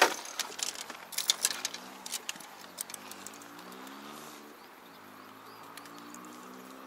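Fishing rods and tackle handled in a small boat: a quick run of clicks and knocks in the first couple of seconds, followed by a faint low wavering hum with a light hiss.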